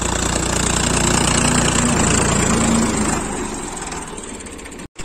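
Ford 3600 tractor's three-cylinder diesel engine running steadily while pulling a disc harrow through ploughed soil. The sound fades a little near the end, then cuts out abruptly for a moment.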